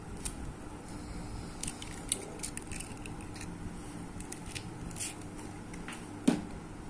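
An eggshell being cracked and pulled apart over a ceramic bowl: a scatter of small, sharp crackles and clicks, with one louder knock about six seconds in.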